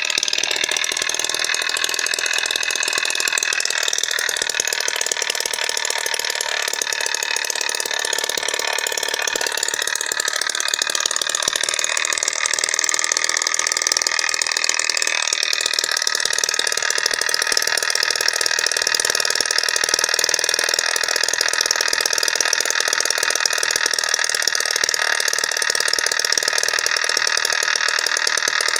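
Small home-built two-stroke engine made from a refrigerator compressor's internals, running steadily with a fast, rattly mechanical buzz. It gets a little louder from about twelve seconds in.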